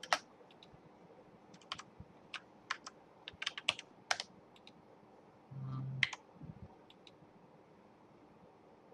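Computer keyboard being typed on: irregular clusters of key clicks, thickest in the first half and thinning out after about six seconds.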